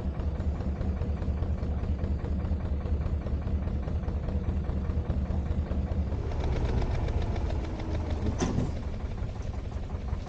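Narrowboat's diesel engine running steadily under way, a low knocking rumble. A brief swish about eight seconds in.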